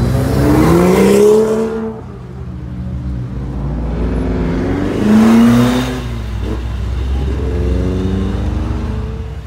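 Cars accelerating hard away one after another: a BMW M2's engine pitch rises to an upshift about two seconds in, then another car accelerates past loudly around the middle, with a third rising run of revs near the end.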